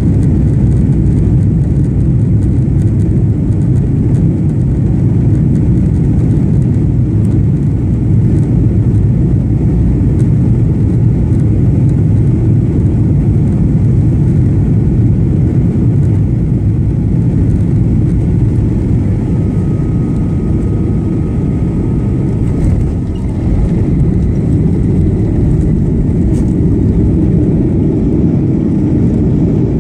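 Steady, deep roar of engines and airflow inside the cabin of a Boeing 737-900 with its flaps extended on final approach. The roar carries on through touchdown into the landing roll, by which point the spoilers are raised. A faint thin whine sounds for a few seconds past the middle.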